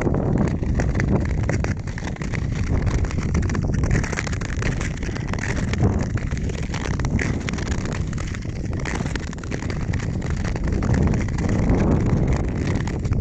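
Wind buffeting the microphone while skating fast across a frozen lake, mixed with the steady scrape and hiss of Nordic ice skate blades gliding on the ice. The loudness swells and eases every few seconds.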